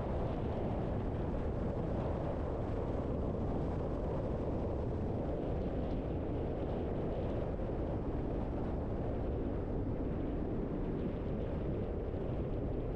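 Car driving at a steady pace: an even rumble of tyre and road noise mixed with engine sound.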